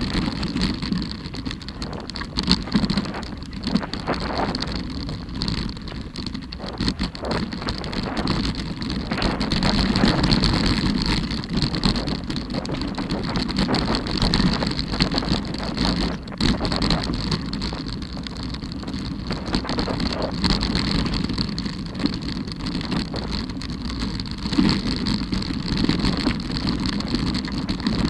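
Mountain bike riding fast down a rough dirt and stone trail: tyres rolling and crunching over loose ground, with constant rattling and frequent knocks as the bike hits bumps.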